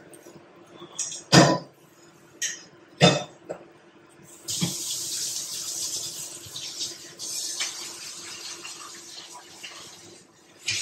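A few short, sharp knocks of kitchen utensils, then from about four seconds in, water running steadily for about six seconds before it stops.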